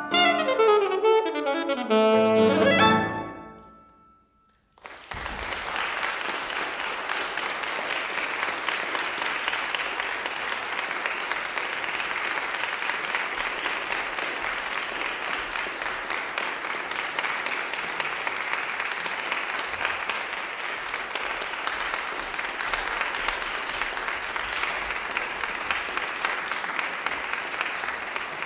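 Alto saxophone and piano play the last falling phrase of the movement, which dies away about three seconds in. After a moment of silence, audience applause starts about five seconds in and carries on steadily.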